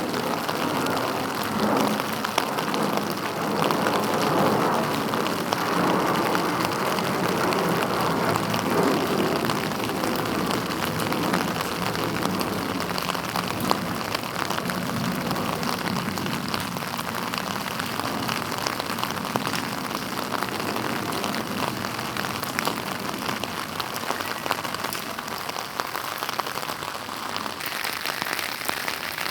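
Steady rain falling, a dense patter of drops, a little heavier in the first half and easing slightly about halfway through.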